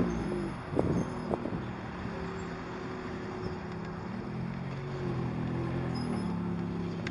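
SoloWheel Glide3 (InMotion V8) electric unicycle riding along a sidewalk: a steady hum from the hub motor, with several held tones that step up and down in pitch as the speed changes. A couple of short knocks come about a second in.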